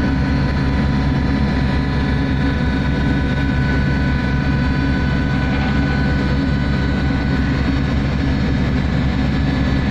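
A survey vessel's engines and machinery running with a steady low drone and constant thin humming tones above it, holding pitch throughout.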